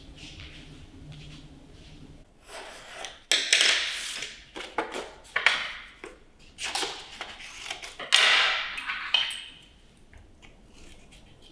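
Paper being cut with scissors and handled: a run of about half a dozen short swishes and rustles, each starting suddenly and fading, that stop near the end.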